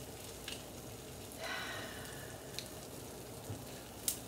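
Eggs frying in a griddle pan, a steady crackling sizzle. A few sharp clicks, the loudest near the end, and a short high squeal about a second and a half in.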